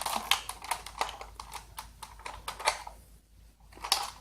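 Irregular plastic clicks and taps as foam dart bullets are pushed into the magazine of a QF-Eagle bolt-action toy dart blaster, pausing briefly about three seconds in.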